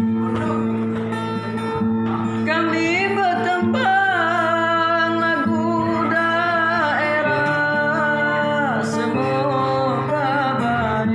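A Batanghari Sembilan song from South Sumatra: a voice sings over a plucked acoustic guitar accompaniment. The voice comes in about two and a half seconds in with long wavering notes, then the guitar carries on alone near the end.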